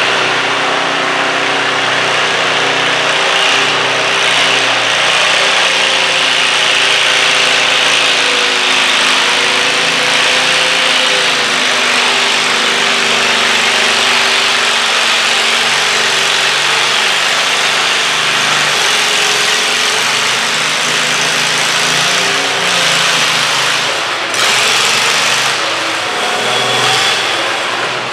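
Cub Cadet garden tractor engine running hard under load as it drags a weighted stoneboat sled in a stock-class pull, its pitch wavering slightly as the load builds; the sound changes a little near the end.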